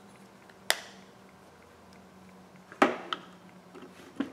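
A few sharp knocks and clicks of a phone and small tools being handled and set down on a workbench, the loudest a little under three seconds in, over a faint steady hum.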